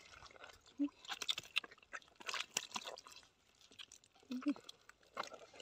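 Digging in dry, cracked mud with a bladed hand tool: irregular chopping, scraping and crunching of hard clods, with soil crumbling and trickling between strokes.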